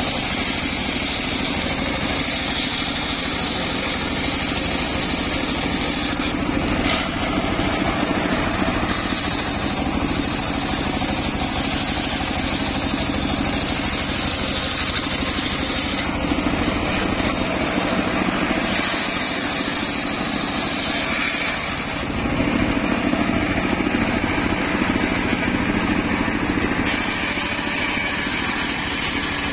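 Homemade circular sawmill ripping a waru log lengthwise, the spinning blade cutting steadily through the wood over a motor running under load. The cutting sound shifts every several seconds as the log is pushed through.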